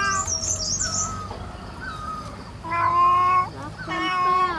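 An animal calling: two long cries that hold a nearly level pitch and drop at the end, about three seconds in and again near the end, with high warbling chirps in the first second.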